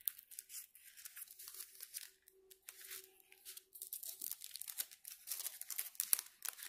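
Clear plastic cover film being lifted and peeled back from a diamond painting canvas's sticky adhesive surface, with irregular crinkling and crackling of the plastic.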